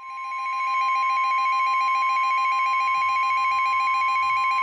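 NOAA Weather Radio warning alarm tone: a loud, steady, single high-pitched tone that fades in over the first second and holds unbroken, signalling that a warning message follows.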